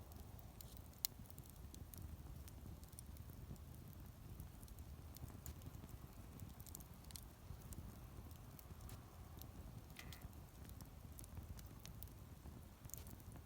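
Wood campfire crackling faintly: scattered small pops and snaps of burning wood, with one sharp pop about a second in, over a low, steady rumble.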